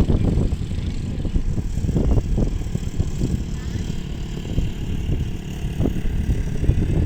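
Wind buffeting the microphone: a heavy, uneven rumble that swells and drops in gusts.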